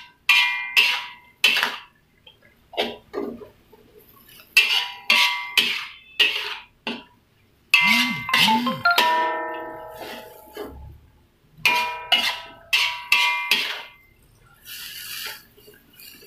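Metal spatula clanging and scraping against a thin aluminium wok while stir-frying water spinach. The strikes come in quick bursts that ring, with short pauses between them.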